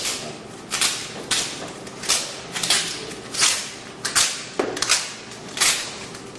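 Clear Scotch tape being pulled off the roll in short tugs as it is wound on, each tug a brief rasping rip, about nine in all.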